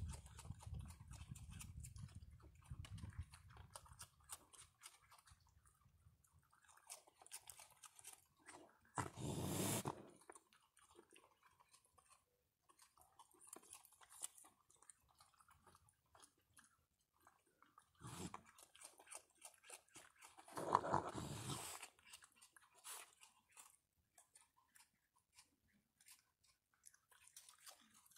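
Raccoons chewing and crunching food, a steady run of small crisp clicks. It is broken by three louder rushing sounds, about a third of the way in, near two-thirds, and a longer one about three-quarters in.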